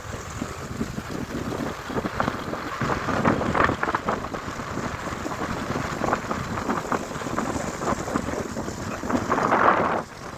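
Wind buffeting the microphone on a moving motorcycle, a gusting rush that rises and falls, with the vehicle's running noise underneath.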